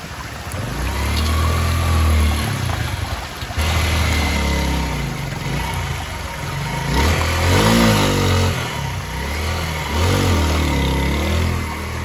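Small motorcycle engine revving up and down as the bike, loaded with several riders, is ridden slowly over rocks through a shallow river. The pitch rises and falls with the throttle, and it is loudest about seven to eight seconds in.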